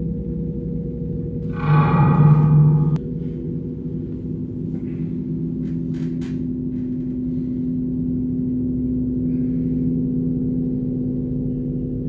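Dark, low, sustained drone of horror-film underscore, hanging steady with a gong-like hum. About two seconds in, a louder buzzing tone with rich overtones lasts about a second and stops abruptly; a few faint clicks follow.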